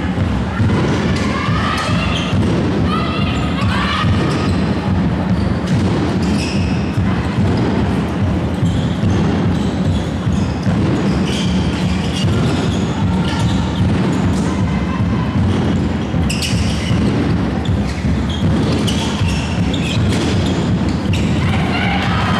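Handball match in a large sports hall: the ball bouncing and striking the court floor, with players' calls, over a steady low rumble of the hall.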